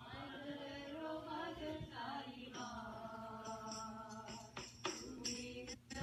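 Devotional bhajan sung with musical accompaniment. Jingling hand percussion comes in about three and a half seconds in and keeps a steady beat.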